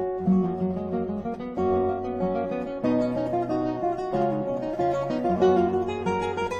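Acoustic guitar music, plucked notes moving from pitch to pitch.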